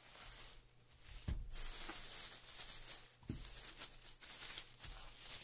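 Plastic bubble wrap crinkling and rustling as a wireless keyboard and mouse are unwrapped from it, with three soft knocks as they are handled and set down.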